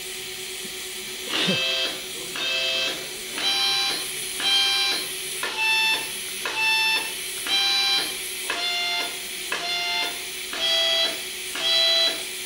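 Harmonica played by an automatic harmonica-player machine: a slow tune of separate held notes, about one a second, changing pitch from note to note. A steady hum runs underneath.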